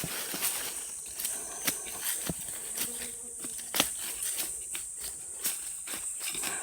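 Insects buzzing in a steady, high drone, with a few scattered knocks and scrapes from digging in the soil.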